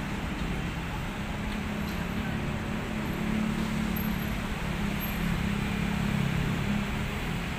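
Steady road traffic from a busy city street below: a continuous rumble of passing cars with a low engine hum.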